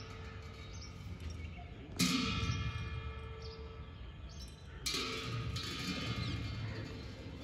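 Slow Tibetan cham-dance percussion: two sharp cymbal clashes about three seconds apart, each ringing on and slowly fading, with a faint low drum beat under them.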